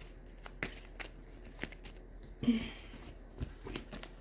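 Tarot cards being shuffled and handled: scattered soft card taps and clicks, with a brief swish about two and a half seconds in.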